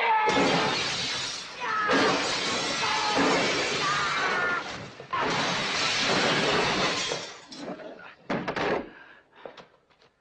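Glass shattering in three long crashes, then scattered short clinks of falling fragments near the end.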